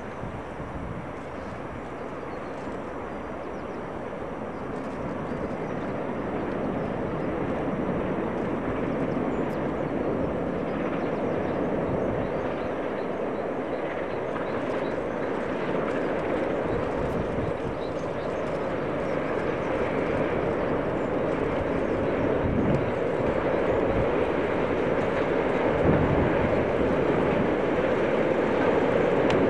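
Steam locomotive hauling a train across a long steel railway bridge: an even rumbling noise of the train that grows steadily louder as it draws nearer.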